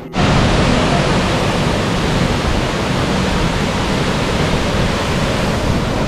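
Savari waterfall pouring: a steady, dense rush of falling water that cuts in suddenly at the start.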